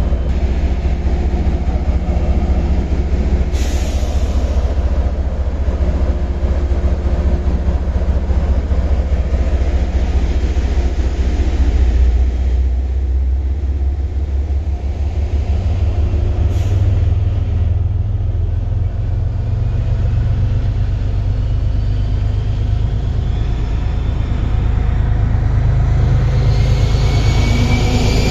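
MBTA HSP-46 diesel locomotive running while its commuter train stands at the platform: a deep, steady engine drone throughout. Two short hisses of air come about 4 and 17 seconds in, and a rising whine near the end.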